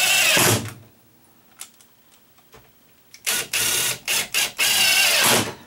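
Cordless drill driving screws through galvanized sheet-metal flashing into the wooden floor. There is one run of the motor at the start, then a few short pulses and a longer run near the end, each run dropping in pitch as the screw seats.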